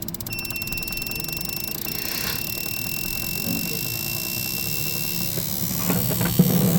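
Honda Vezel hybrid engine idling with a fast, even ticking and a thin steady high whine. The engine has a cylinder 3 misfire, code P0303. A few knocks sound near the end.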